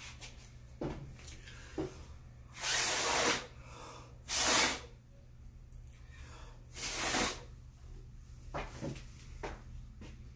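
A person blowing hard by mouth onto wet acrylic paint, three long puffs of breath with fainter breaths between, pushing the poured paint outward from the centre of the canvas in a Dutch ring pour.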